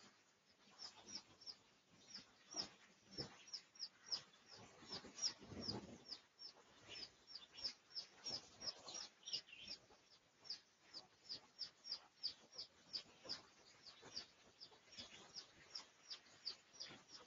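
Faint bird chirping: a long, even run of short, high, falling chirps, about three a second, with a few soft low knocks or rustles around the middle.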